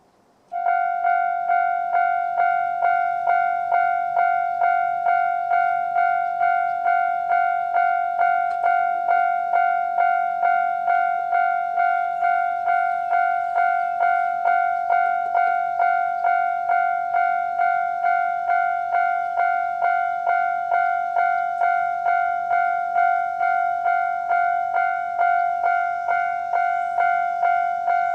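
Japanese railway level-crossing warning alarm starting about half a second in. It rings a single high electronic tone with overtones, struck about twice a second in an even, steady rhythm: the crossing's normal warning sound for an approaching train.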